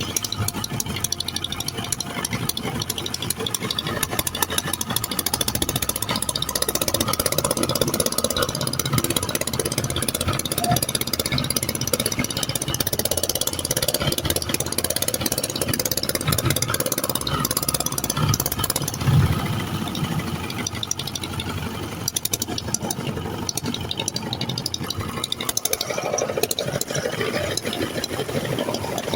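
Boat engine running steadily, mixed with the rush of river water.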